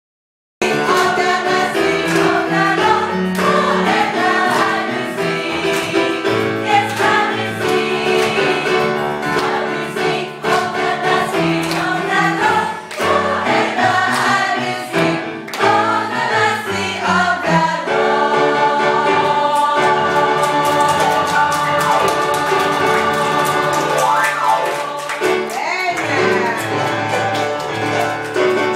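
Gospel choir singing with musical accompaniment, starting abruptly about half a second in, with longer held chords in the second half.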